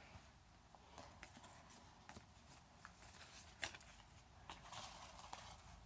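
Near silence with faint, scattered clicks and rustles of small cosmetic products and their packaging being handled.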